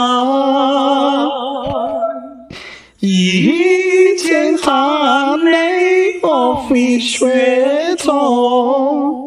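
A solo voice singing unaccompanied, holding long wavering notes. It breaks off briefly about two and a half seconds in.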